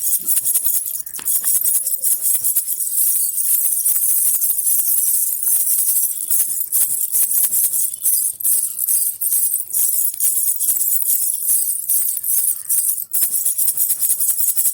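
Baby rattle with small jingle bells (a jhunjhuna) shaken without pause, making a dense, bright jingling of quick strokes that breaks off briefly about 13 seconds in.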